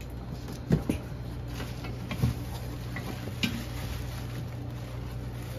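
A few short knocks and clunks as the aluminium parts of a pressure canner and its cardboard box are handled, the loudest just under a second in and a little past two seconds, over a low steady hum.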